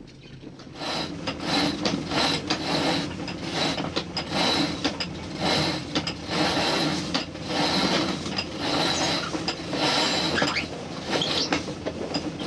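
Sailboat winch being cranked by hand to haul in a line for the headsail, its pawls ratcheting in a steady rhythm of a few strokes a second, starting about a second in.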